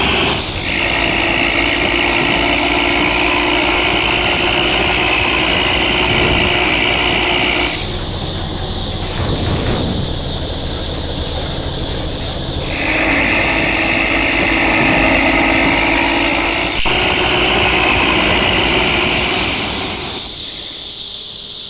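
Isuzu Giga truck engine running hard under a full load with a snoring 'ngorok' sound like a Hino. It eases off twice, about eight seconds in and again near the end, each time picking back up between.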